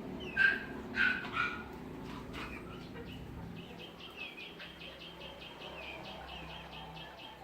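Chickens calling: three loud squawks in quick succession, then a fast run of high, short chirps at about five a second.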